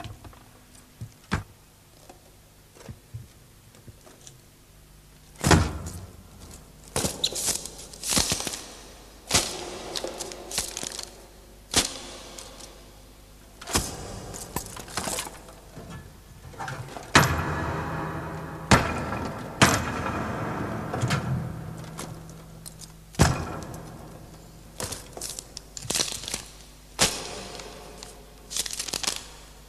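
A series of irregular sharp knocks, thuds and crashes, a few faint ones at first and then loud and frequent from about five seconds in, with a rougher, noisier stretch a little past the middle. Faint music sits under it.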